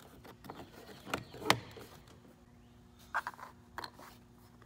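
Plastic interior door trim cover on a Ford F-150 being pressed into place around the door handle: a few sharp clicks and snaps as its clips seat, the loudest about a second and a half in.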